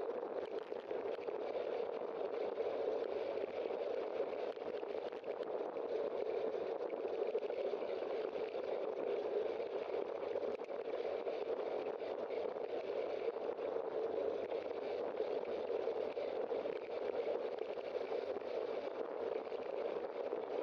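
Steady, even rushing of wind and road noise on a bicycle-mounted camera while riding along a street among cars.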